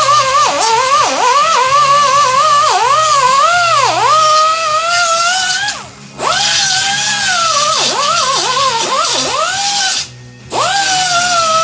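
Pneumatic (air) grinder whining at high speed against the metal of a snowmobile ski, its pitch dipping each time it bites in under load and recovering as it lifts off. It stops briefly twice, about six and ten seconds in.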